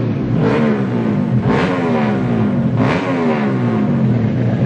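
Drag-tuned 130cc Honda Kharisma's single-cylinder four-stroke engine being revved in short throttle blips, three times: each rev climbs quickly in pitch and falls back toward idle.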